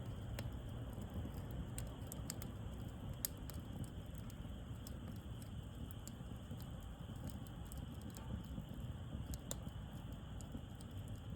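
Wood fire burning: a steady low rumble with sharp, irregular crackles and pops.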